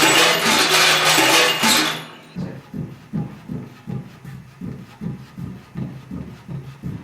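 Ceramic percussion: loud, dense playing for about two seconds, then a steady run of taps on a clay drum, about three a second, each with a low ringing tone.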